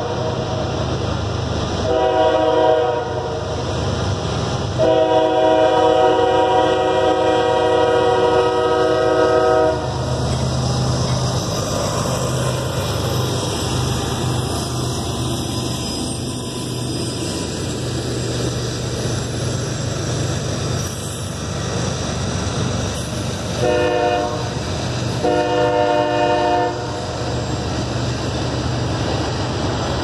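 Diesel freight locomotives' air horn sounding at a grade crossing: a short blast, then a long one held about five seconds. The locomotives then rumble past with freight cars rolling and clacking behind, and two more horn blasts, one short and one longer, come near the end.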